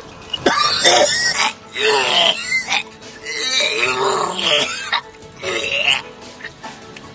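A man gagging and retching after a mouthful of foul liquid: several drawn-out, pitch-bending heaves one after another, with short gaps between them.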